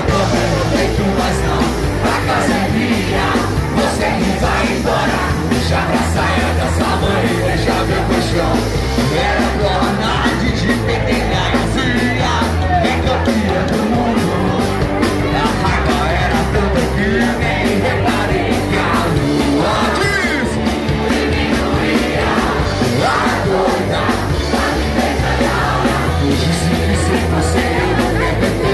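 Live rock band playing loud: drum kit, bass and guitar, with a singer's voice over a microphone.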